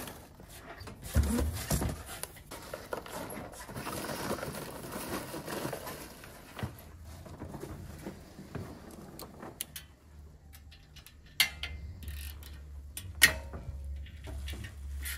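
Cardboard packing filler rustling as hands dig through a box, then a few sharp metallic clinks of a hand tool on the motorcycle, over a low hum.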